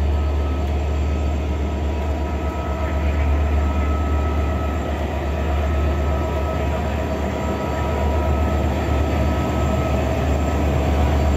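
Diesel locomotives idling at a standstill, making a steady low engine hum with a few steady higher tones over it.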